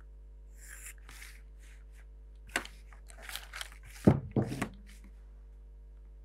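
Pencil strokes on drawing paper, then clicks, scraping and a low thud as plastic set squares are slid across and set down on the drawing board, the thud loudest, just after four seconds in.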